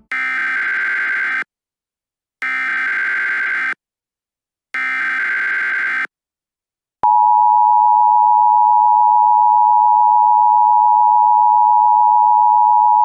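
Emergency Alert System tones. First come three short rasping data bursts of the coded alert header, each about a second long with about a second's gap. Then, about seven seconds in, the steady two-tone EAS attention signal starts, the warning that an alert message is about to be read.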